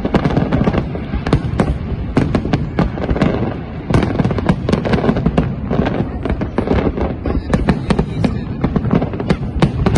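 Fireworks display: a dense, continuous barrage of aerial shell bursts, many loud bangs a second over a rolling rumble. The barrage thins briefly a little past three seconds in, then surges again.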